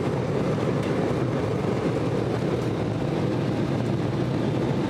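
Jet airliner cabin noise during the takeoff roll: a steady, loud rumble of the engines and the wheels on the runway, heard from inside the cabin.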